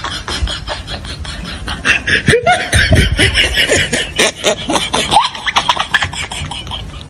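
Fast, beatbox-like rhythmic sound track with a string of falling, laugh-like vocal swoops in the middle, from about two to five seconds in, which are the loudest part.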